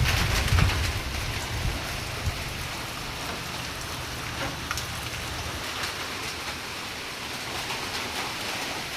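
Steady rain falling, with scattered drops ticking on surfaces, and a low rumble in the first second or so.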